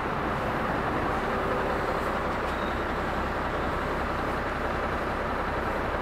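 Steady, unbroken running of a disinfectant sprayer truck's engine and pump, which drive the high-pressure spray hoses.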